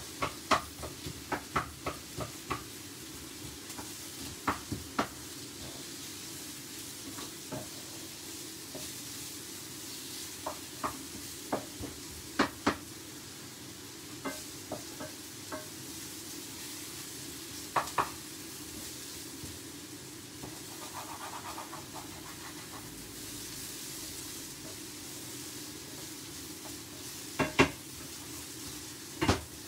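Vegetables sizzling steadily in coconut oil in a frying pan as they are stirred with a wooden spatula, with scattered sharp knocks of the spatula against the pan, clustered in the first couple of seconds, again in the middle and near the end.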